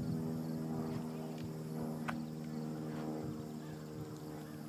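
A steady engine-like drone holding one pitch, with a single brief tick about two seconds in.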